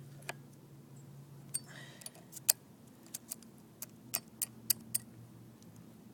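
Irregular sharp metal clicks and clinks, about a dozen over a few seconds, from hand work on a Craftsman chainsaw, tightening its loose chain on the bar.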